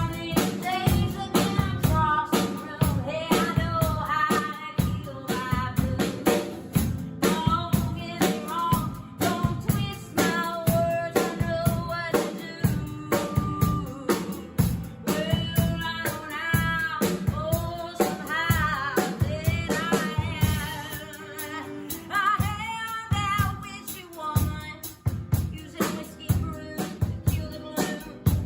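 A woman singing an original singer-songwriter song with a band and drum kit keeping a steady beat, her voice wavering on held notes.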